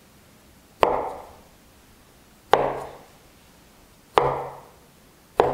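A cleaver cuts through a log of dough and strikes the wooden board beneath: four sharp chops, roughly one every one and a half seconds, each ringing briefly.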